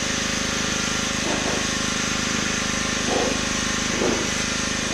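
Gas-engine pressure washer running steadily under a constant hiss of high-pressure water spray on concrete, with a few brief swells as the spray shifts.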